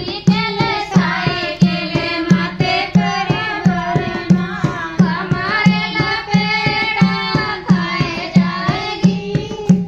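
Dholak played in a steady rhythm, a deep bass stroke about every two-thirds of a second with sharp slaps between, under women singing a banna-banni wedding folk song.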